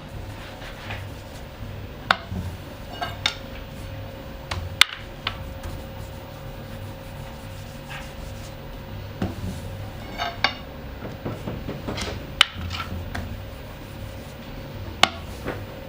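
Kitchen clatter of bakery utensils: about a dozen sharp, irregularly spaced clacks and clinks over a steady machine hum.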